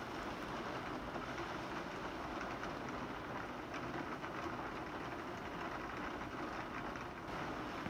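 Heavy rain falling steadily, with many small drop ticks against a window pane.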